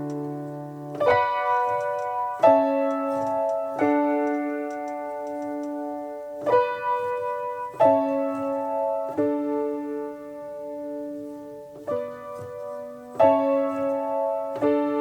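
Background music: slow piano chords, a new chord struck every one to two seconds and left to ring.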